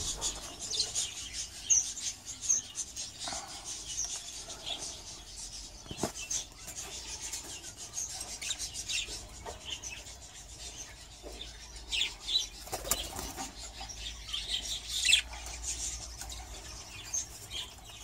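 A flock of budgerigars chattering with many short, high chirps, with now and then a flutter of wings.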